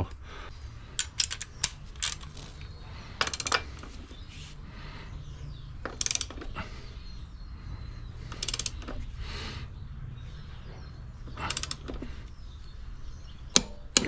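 Torque wrench on a motorcycle's rear axle nut: short runs of ratchet clicks as the nut is tightened, then one sharp click near the end as the wrench reaches its set torque.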